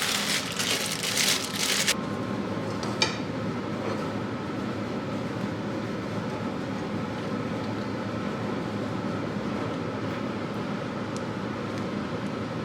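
A loud rustling hiss for the first two seconds. After it comes a steady mechanical hum with faint steady tones, and a single click about three seconds in.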